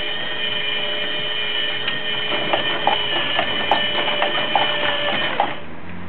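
Small motor and gear train of a wooden automaton running with a steady whine, with irregular clicks and knocks from its moving parts from about halfway. The motor stops suddenly shortly before the end.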